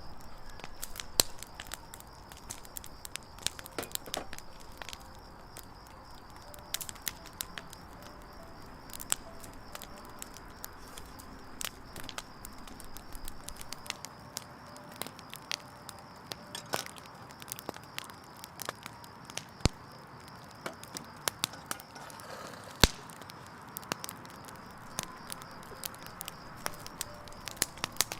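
Wood campfire burning, crackling with frequent sharp, irregular pops of varying loudness over a soft steady hiss of the flames.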